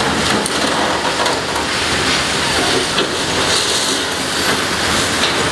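Caterpillar demolition excavator's crusher jaws working in broken concrete and rebar: a loud, steady din of crunching and grinding with a few scattered sharp knocks.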